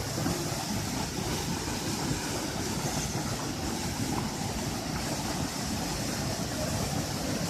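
Waterfall running: a steady, unbroken noise of falling water.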